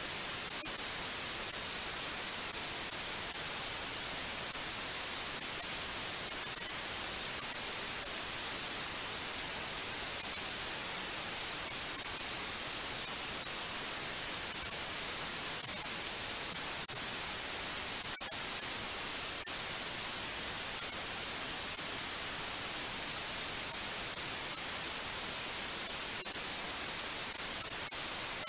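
Steady white noise: an even hiss, brightest in the high treble, with one momentary dip about 18 seconds in.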